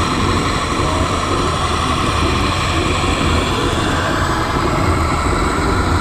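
Steady engine sound from an RC scale John Deere 9RX four-track tractor as it crawls through sand, a continuous low rumble with a mid-pitched drone over it.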